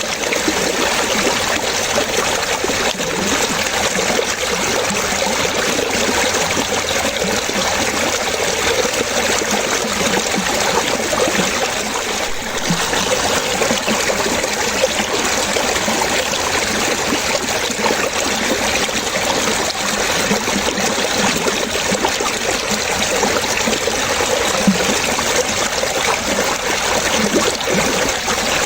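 Running water trickling and splashing steadily, a continuous dense patter of small splashes with no pauses or changes.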